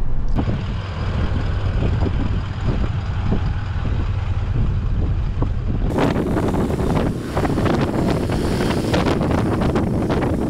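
Four-wheel drive on a dirt track, heard first from inside the cab: a steady low engine and road rumble with scattered knocks. About six seconds in this gives way abruptly to a camera outside the moving vehicles, where wind buffets the microphone and tyres run on sand.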